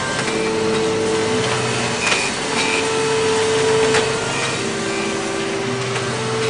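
Machine-shop noise: industrial machines running with a steady hiss and several held humming tones that change pitch every second or two. A couple of sharp metallic clicks come about two and four seconds in.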